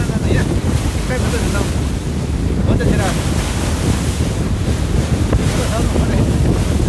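Wind buffeting the microphone on a speedboat under way, over a steady low rumble and the rush of water against the hull.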